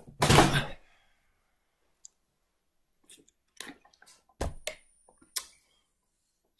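A brief loud rustle of handling right at the start, then a scatter of short clicks and gulping sounds from a man drinking out of a plastic water bottle.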